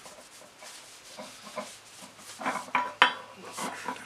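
Rag rubbing linseed oil into a wooden hammer handle, with the steel hammer head shifting on the anvil: soft rubbing and a few light knocks and clinks, the sharpest about three seconds in.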